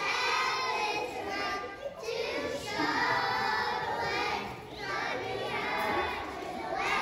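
A group of preschool children singing a song together, in sung phrases with short breaks about two seconds in and again near five seconds.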